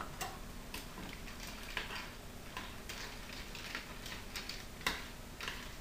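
Light, irregular clicks and taps of kitchen utensils and cookware being handled, about two a second, with a sharper tap near the end.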